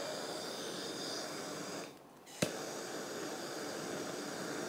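Handheld gas torch hissing as it ignites a bed of dry fuel. It cuts out about two seconds in, is re-lit with a sharp click about half a second later, then hisses steadily again.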